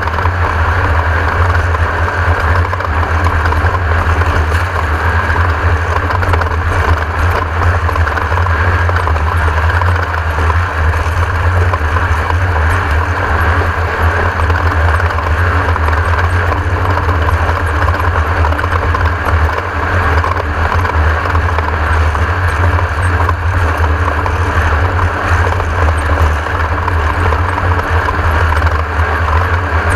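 Class 1600 desert race buggy running at speed, its air-cooled Volkswagen engine under steady load beneath a loud, constant rush of noise.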